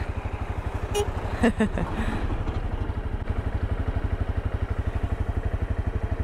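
Honda CRF250L's single-cylinder four-stroke engine idling steadily with an even low beat while the bike stands still, with a couple of short sharper sounds about one and a half seconds in.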